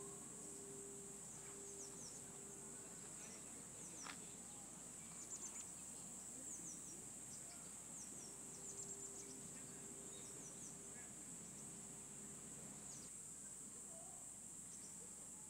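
Faint outdoor ambience of insects trilling steadily at a high pitch, with clusters of short, quick, falling high chirps.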